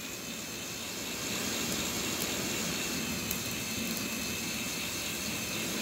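Small battery-powered electric motor driving the 3D-printed plastic gears and leg linkages of a walking spider robot, running steadily with a thin high whine. The robot is free-running with its legs lifted clear of the ground.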